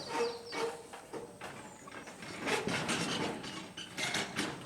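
Wind chime clinking irregularly in the breeze, a scatter of light metallic strikes with one note ringing briefly near the start.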